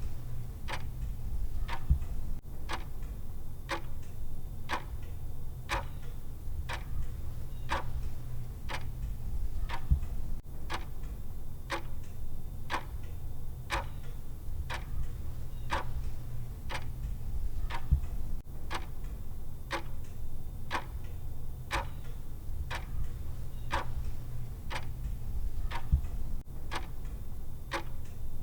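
Clock ticking, the timer's steady tick track, at very roughly two ticks a second over a low steady hum. A slightly louder click comes about every eight seconds.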